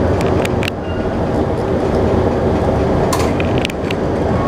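Running noise inside a Toei 5500 series electric train car: a steady rumble of wheels on rail, with a few sharp clicks about half a second in and again about three seconds in.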